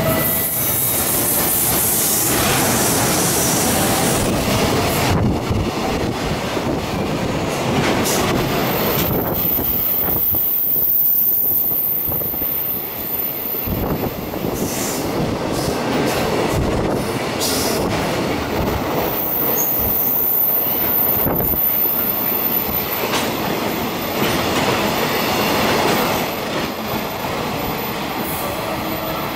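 Container freight train hauled by an EF210 electric locomotive passing through a station without stopping: wagon wheels rumbling and clattering over the rails. A thin high wheel squeal comes in twice, about a third of the way in and again past the middle.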